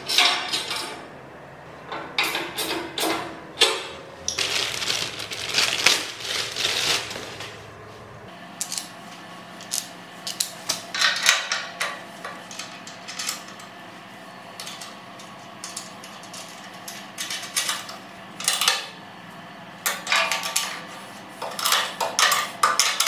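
Irregular metallic clinking and clattering of steel welding-cart parts being handled and bolted together, with hand tools knocking against the sheet steel.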